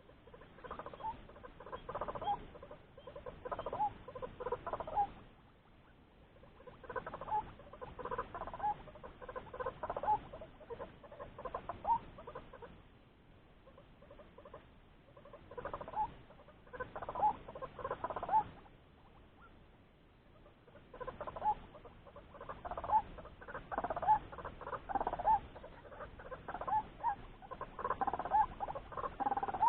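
White-breasted waterhen (ruak-ruak) calls: rapid, repeated croaking 'kruok' notes in several bouts of a few seconds, with short pauses between them.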